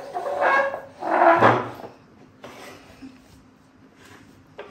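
A pet macaque calls twice, two short pitched cries in the first couple of seconds. Near the end comes a light click, like a plastic plate set on the table.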